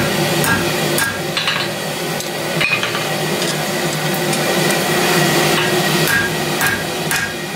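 Ball-pein hammer striking hot steel on an anvil while forging the bit of a pair of blacksmith's tongs: ringing blows about two a second, in two short runs with a pause between, over a steady hum.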